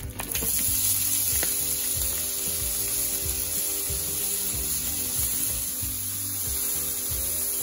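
Bacon lardons frying in a hot non-stick frying pan, a steady sizzle that starts suddenly just after the start. Background music plays underneath.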